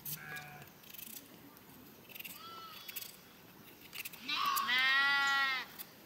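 A sheep bleats once, loud and long, about four seconds in and lasting about a second and a half, after a few fainter, shorter calls.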